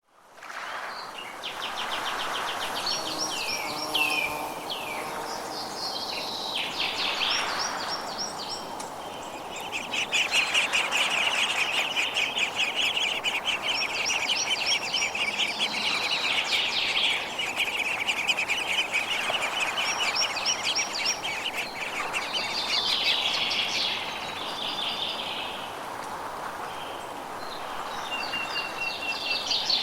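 Songbirds singing in a forest: repeated high, fast trills and chirping phrases, one long trill running for several seconds near the middle, over a faint steady hiss of background noise. The sound fades in at the start.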